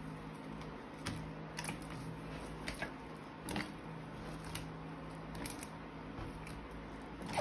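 Sticky, jiggly slime being stretched, pulled apart and pressed by hand, giving scattered sharp clicks and crackles as it sticks and tears, over a faint steady hum.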